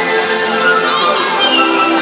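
Music playing over outdoor loudspeakers for a choreographed fountain show, with a crowd of spectators talking underneath.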